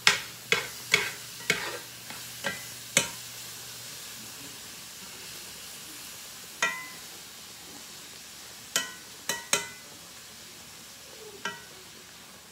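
Yellow squash and onions sizzling as they fry in a cast iron skillet, while a utensil scrapes and knocks against the pan in sharp, ringing strikes. There is a quick run of about six in the first three seconds, then scattered knocks, including three close together about nine seconds in.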